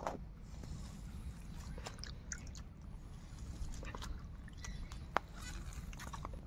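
Hands squeezing and moving wet, soaked taro pieces in a steel bowl, with scattered small clicks and one sharp click about five seconds in. A few short bird calls sound in the background.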